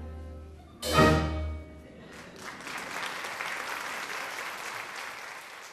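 A piece of music ends on one loud final chord about a second in, and audience applause follows, starting about two seconds in and running on until it fades out.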